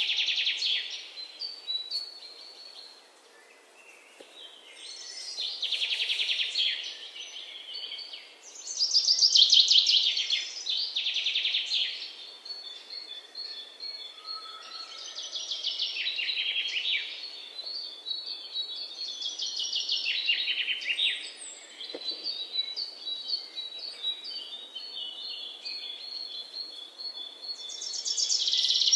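Small birds chirping in rapid trills, coming in bursts of a second or two again and again, with fainter thin high notes between the bursts.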